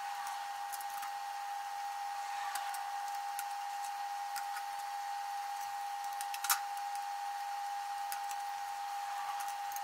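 Faint clicks and small knocks of drone parts and small tools being handled during a circuit-board removal, with one sharper click about six and a half seconds in, over a steady high-pitched hum.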